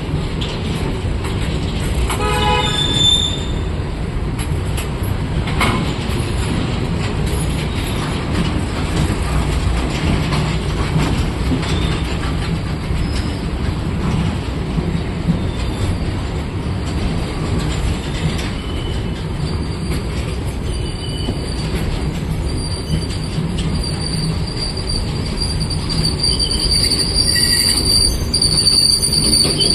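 Indian Railways train running past with a steady low rumble from the wheels on the track. A short horn blast sounds about two to three seconds in, and a high-pitched wheel squeal builds near the end.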